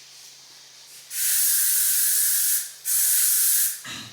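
Aerosol spray can sprayed in two hissing bursts, the first about a second and a half long and the second a shorter one just after it.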